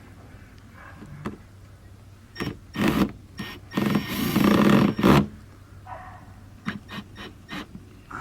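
Cordless drill motor running in short bursts and then one longer run of about a second and a half, as when driving a screw. A few sharp clicks follow near the end.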